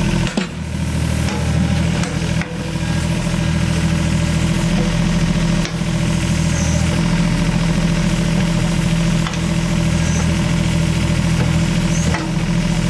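Excavator's diesel engine running steadily during digging work, with a few brief dips in level.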